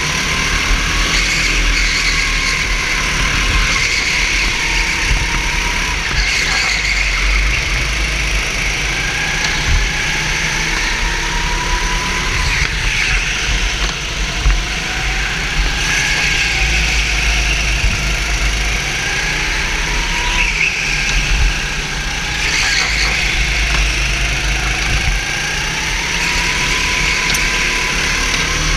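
Go-kart engine heard onboard at racing speed, its pitch rising as it accelerates and falling back off the throttle, over and over, under a steady low rumble.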